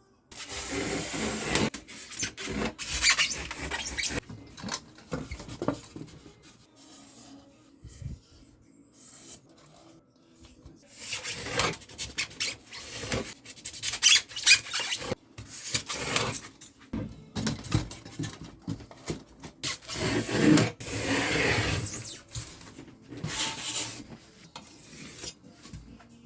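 Polystyrene foam being rasped and rubbed by hand, in runs of scraping strokes with a quieter pause partway through.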